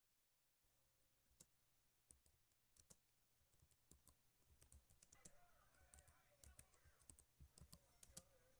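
Faint typing on a computer keyboard: irregular key clicks as words are typed out.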